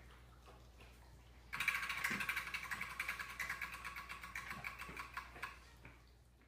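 Homemade prize wheel spinning, its plastic flapper clicking against the pegs on the wheel's rim. The clicking starts suddenly and fast about a second and a half in, then slows and fades as the wheel coasts to a stop near the end.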